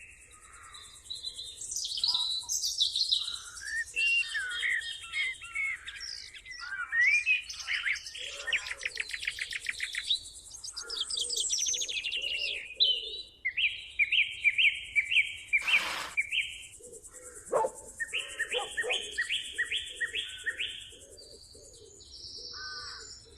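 A chorus of wild songbirds chirping and trilling, with many rapid repeated notes from several birds at once, over a steady high hiss of insects.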